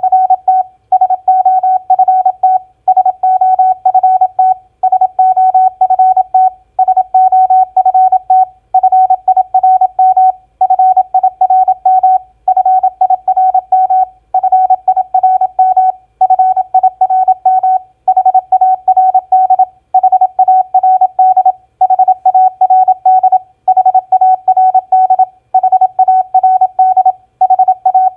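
Morse code (CW) practice tone keyed at 27 words per minute: one steady beep pitch sounding rapid dots and dashes, sending four-letter words one after another, each word about a second and a half long with a short pause between words.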